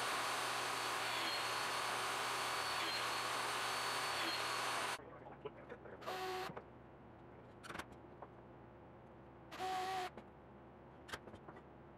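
A shop power tool, apparently the radial arm saw, running steadily with a faint high whine, then stopping abruptly about five seconds in. Afterwards a quiet shop with a few short knocks and clatters as wooden strips are handled on the bench.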